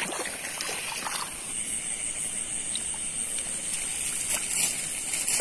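Shallow rice-paddy water sloshing and trickling as someone wades and grabs in it for eels, over a steady high-pitched hiss.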